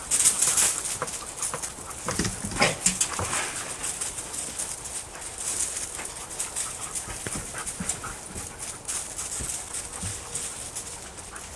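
A pack of excited sled dogs in harness whining and yipping, over a continuous rustle of many dogs moving about, busiest in the first few seconds.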